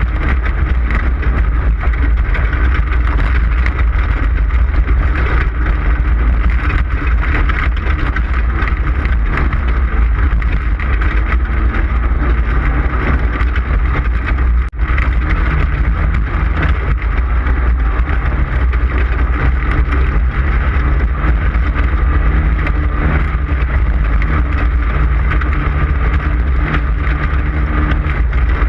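Off-road desert race vehicle running hard at speed, heard from on board: a loud, steady engine with heavy low rumble and rough road and wind noise. The sound cuts out for an instant about halfway through.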